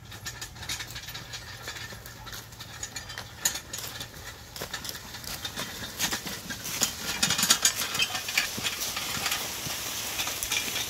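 A mule pulling a plow through stony vineyard soil: the plowshare scrapes and crunches over stones, mixed with the mule's hoof steps. It grows louder from about six seconds in as the mule and plow pass close by.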